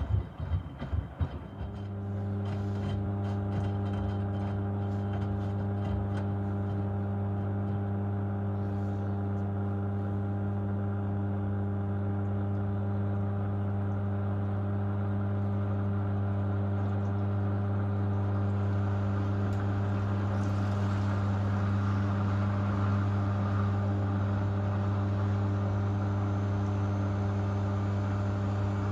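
Miele W2573 front-loading washing machine: the drum's wet tumbling and sloshing of the cooldown stage stops within the first two seconds. The machine then hums steadily as it drains and spins the drum for its first interim spin.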